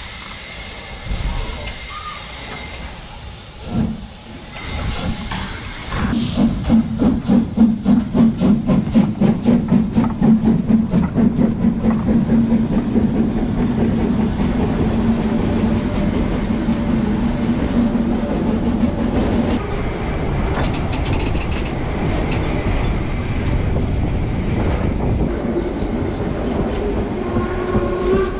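Harz narrow-gauge steam locomotive 99 7240-7 starting a train. Steam hisses at first, then from about six seconds in come regular exhaust chuffs, several a second. As the carriages roll by, the wheels click over the rail joints.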